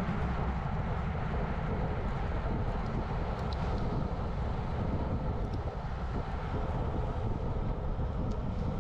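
Wind rushing over the microphone of a camera on a racing bicycle moving at about 40 km/h: a steady low rumble.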